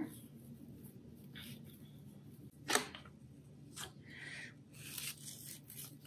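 Faint rustling of jute twine being unwound and handled by hand, with one sharp click about three seconds in, over a low steady room hum.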